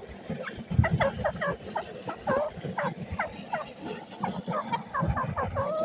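Grey francolin (teetar) calling: a fast, busy run of short squeaky notes, each sweeping up or down in pitch, several a second, over irregular low thuds.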